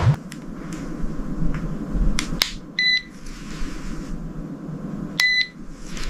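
Two short electronic beeps about two and a half seconds apart, each a clear high tone, with several sharp clicks around them.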